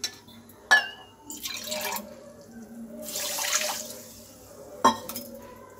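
Water poured from a small bowl onto sugar in a nonstick pan to make sugar syrup, splashing for about a second past the middle. Sharp clicks come a little after the start and again near the end.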